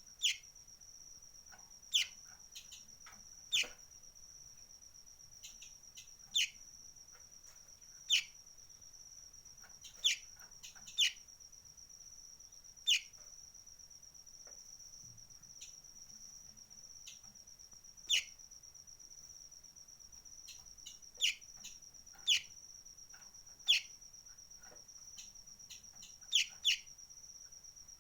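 Sunbird (kolibri ninja) giving short, sharp call notes that sweep downward, repeated at irregular intervals every one to three seconds, sometimes as quick pairs. Behind them an insect trills steadily at a high pitch.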